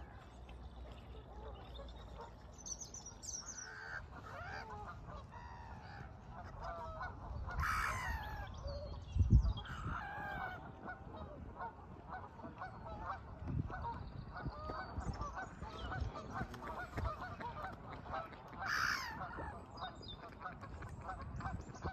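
Geese honking over and over, the calls packing into a fast, dense run of short honks through the second half. A single low thump about nine seconds in.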